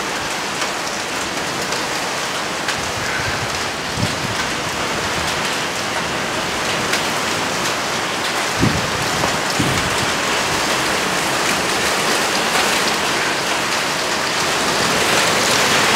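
Hail and heavy rain pelting down steadily on surfaces, a dense hiss with scattered sharp ticks, swelling a little louder near the end.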